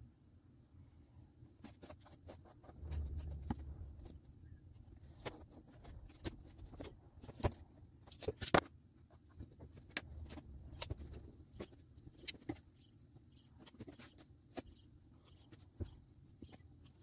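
Scattered light clicks and taps from a tape measure, pencil and thin wooden boards being handled on a plywood sheet, with low rubbing sounds about three and ten seconds in.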